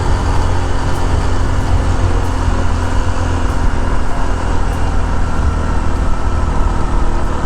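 TVS XL100's 99.7 cc single-cylinder engine running steadily under load as the moped climbs a steep hill, heard as a continuous low rumble.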